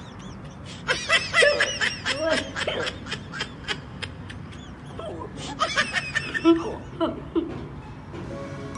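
A young man laughing in quick snickering bursts, twice, while eating spicy noodles. Background music comes in near the end.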